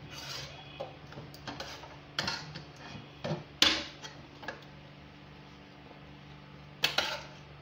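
A serving spoon knocking and scraping against a metal cooking pot as beef korma is spooned onto a layer of parboiled rice: scattered sharp taps, the loudest about three and a half seconds in and again near the end.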